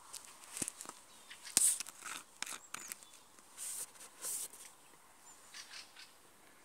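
Plastic bottle handled close to the microphone: scattered clicks, crackles and short rustles.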